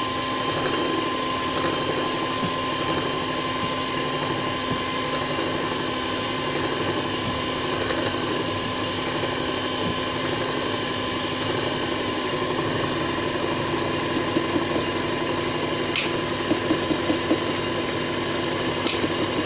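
Handheld electric mixer motor running steadily, whirring at an even speed while it blends oils as lye solution is poured in. Two brief clicks near the end.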